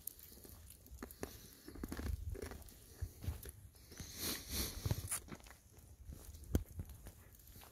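Golden retrievers padding and sniffing about on a path while a person walks with them: small crunching footsteps and scattered clicks, with a louder rustle about four seconds in.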